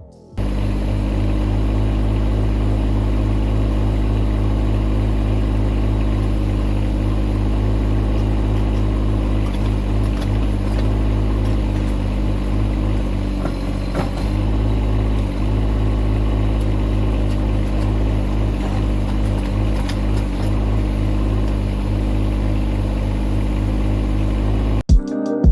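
Engine of a digging machine working a foundation excavation, running steadily at a constant speed, with a few faint knocks. It starts about half a second in and cuts off abruptly near the end.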